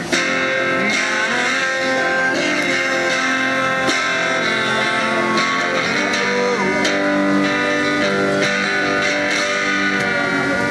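Guitar music with strummed chords.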